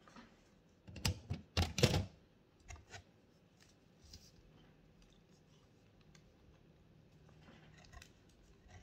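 Food packaging handled by hand: a burst of sharp crackling clicks about a second in, lasting about a second, then a few scattered faint clicks.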